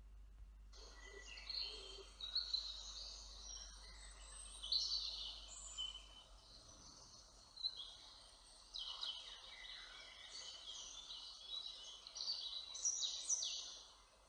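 Several small songbirds singing in woodland, overlapping quick high phrases and trills. The songs start under a second in and die away just before the end.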